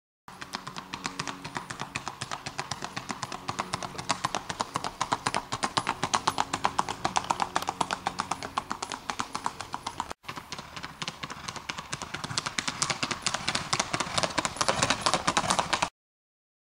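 A keg-shod gaited mare's hooves striking a hard road at a fast, even gait: a rapid, steady clip-clop of shod hooves, with a brief dropout about ten seconds in.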